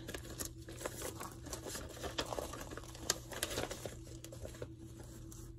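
Paper rustling and crinkling in irregular small bursts as a receipt is handled and unfolded.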